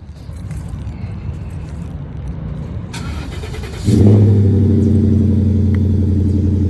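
A car engine starts just before four seconds in and settles into a loud, steady idle.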